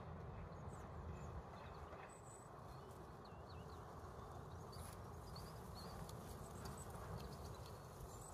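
Faint outdoor ambience: a steady low rumble of background noise with scattered faint, short high-pitched chirps.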